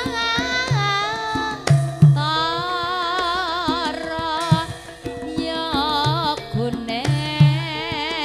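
Javanese gamelan music for a tayub dance: a sung line of long, wavering held notes over hand-drum strokes and steady ringing gamelan tones.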